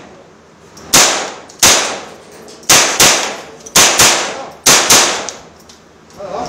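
M4 carbine fired semi-automatically: eight sharp gunshots at an uneven pace, some in quick pairs, from about a second in to about five seconds in, each shot followed by a short echoing tail.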